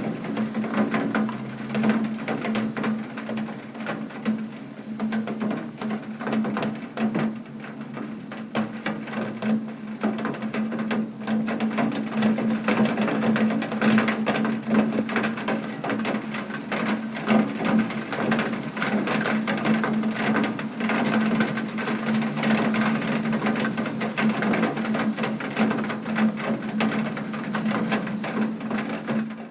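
Rain falling, with dense drops tapping steadily on a hard surface over a constant low hum, cutting off abruptly at the very end.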